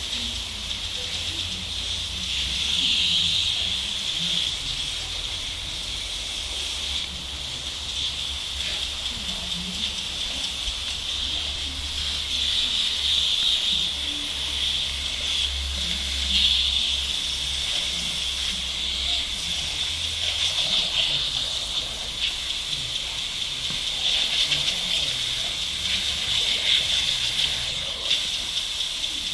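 Lawn sprinkler on a garden hose spraying a fine mist of water in a steady hiss that swells and fades now and then. A low rumble runs under it until about two-thirds of the way through.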